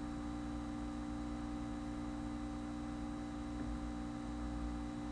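Steady electrical hum with a faint hiss, holding an even level with no change.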